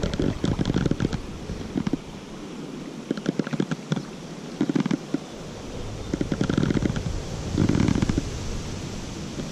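River water sloshing and splashing around a wading angler, in irregular crackly bursts.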